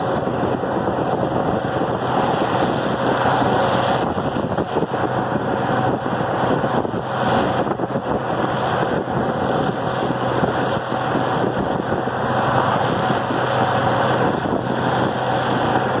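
Farmall diesel tractor engine running steadily at road speed, with a constant low hum, while wind rushes over the microphone.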